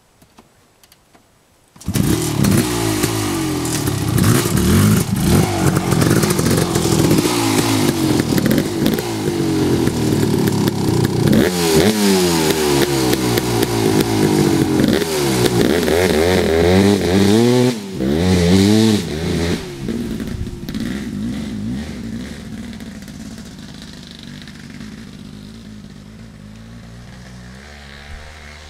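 Kawasaki KX500 two-stroke single-cylinder dirt bike engine cuts in suddenly about two seconds in and is revved up and down hard, jetted rich on a 160 main jet that the owner says is off. It then pulls away, fading steadily over the last several seconds.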